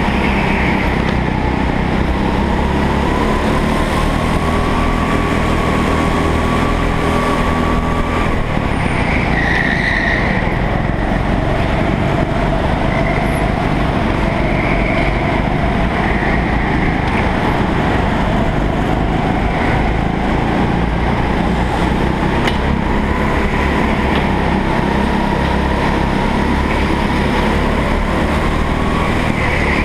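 Go-kart engine running hard, recorded on board the kart, its pitch rising and falling as the throttle opens and closes through the corners.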